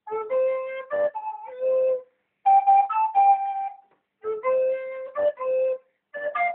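A recorder playing a simple melody, in short phrases of a few notes each with brief breaks between them.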